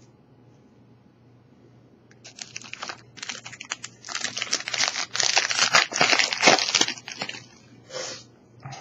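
Foil Pokémon booster pack wrapper crinkling as it is handled, starting about two seconds in and going on for some five seconds, with one more short crinkle near the end.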